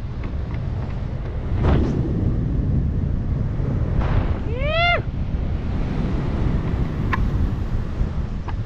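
Rushing wind buffeting the microphone of a speedflyer in a fast descent at around 35 to 46 mph. About four seconds in, a short rising vocal whoop.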